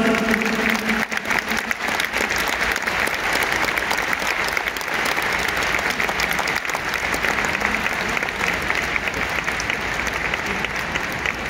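Large stadium crowd applauding steadily: dense clapping from many thousands of hands, easing off slightly near the end.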